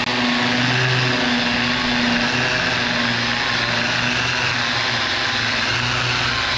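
Angle grinder running steadily, grinding rust back on a bus's steel body before rust-proofing.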